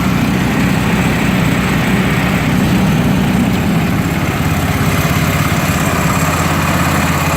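Small gasoline engine of a tractor-mounted snowblower attachment running steadily at a low throttle setting. Its note shifts slightly about six seconds in.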